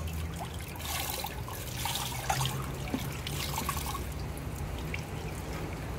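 Swimming-pool water trickling and lapping at the pool's edge, with a low steady hum underneath.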